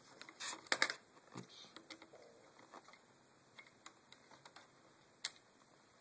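Scattered small clicks and taps of a screwdriver backing out the tiny screws of a laptop graphics-card cooler, with a cluster of louder clicks just under a second in and one sharp click about five seconds in.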